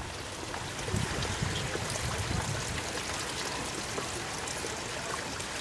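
Mountain stream running, a steady rush of water, with a low rumble coming and going in the first few seconds.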